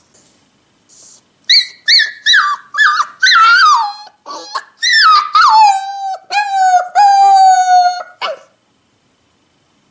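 A puppy crying: a run of short, high-pitched whimpers that lengthen into drawn-out whines sliding down in pitch, the last held for over a second before stopping about eight seconds in.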